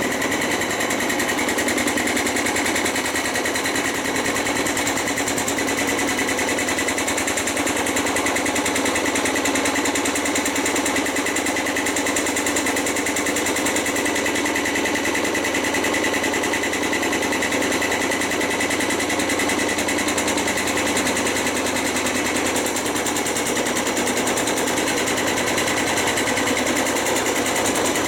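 Beko front-loading washing machine spinning with its transit bolts still fitted: the drum cannot move on its suspension, so the whole cabinet shakes with a loud, fast, steady rattle and walks across the floor. Its drum bearings are worn out.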